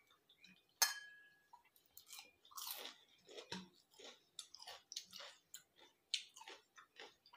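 A person chewing and crunching food eaten by hand, in an irregular run of short bites and mouth sounds. A sharp clink with a brief ring stands out about a second in.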